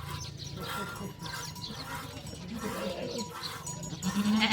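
A goat bleats once near the end, a loud wavering call. Fainter animal sounds come before it.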